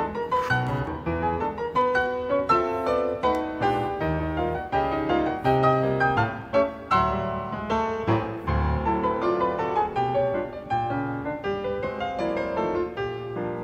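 Background piano music: a steady run of separate, clearly struck notes over lower bass notes.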